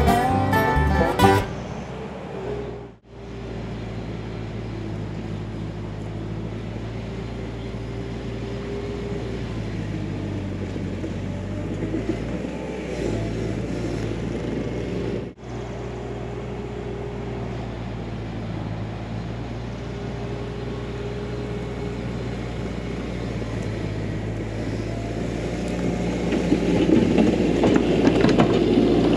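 Bluegrass-style banjo and guitar music for the first second or so. Then a Bobcat T300 compact track loader's diesel engine runs steadily as it pushes a grading attachment along a dirt trail. It grows louder near the end as the machine comes close.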